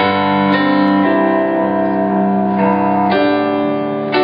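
Rock band playing live between sung lines, with held keyboard chords to the fore that change every second or so, recorded through a phone microphone.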